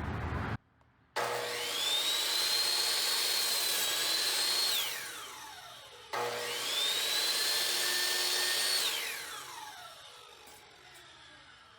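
Electric mitre saw motor switched on twice: each time a whine rises quickly as the blade spins up, holds at a high pitch for about three seconds, then falls away as the blade winds down after release.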